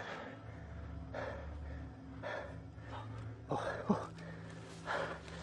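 A person breathing heavily: several soft, breathy gasps about a second apart over a steady low hum.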